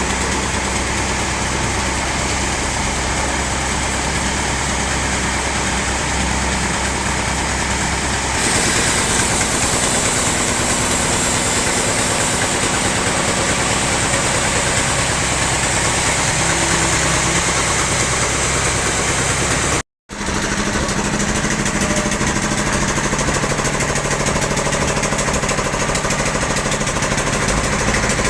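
Sawmill machinery running steadily, an engine and a log saw at work. It changes in tone about eight seconds in and cuts out for a moment about twenty seconds in.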